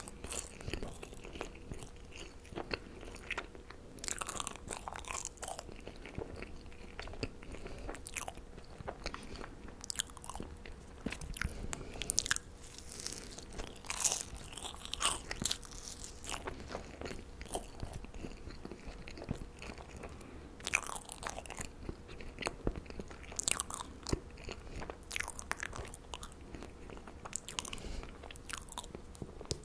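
Close-miked marshmallow eating: soft bites and squishy, sticky chewing in irregular bursts, with a few sharper crackles.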